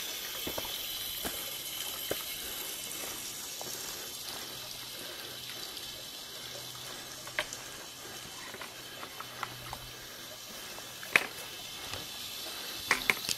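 Water running steadily from a spout into a bucket, fading a little as it goes on, with a few sharp clicks and knocks in the second half.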